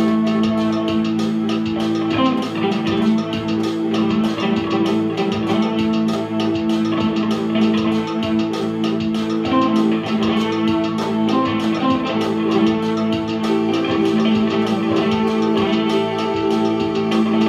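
Electric guitar and electronic keyboard playing live together through a small amp, strummed guitar over long held chords.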